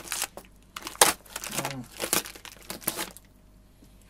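Stiff clear plastic blister packaging of a drum clamp crinkling and crackling as it is cut open with scissors and pulled apart, in short irregular crackles that stop about three seconds in.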